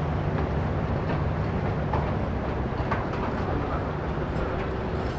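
Engine of an abra water taxi running with a steady low drone.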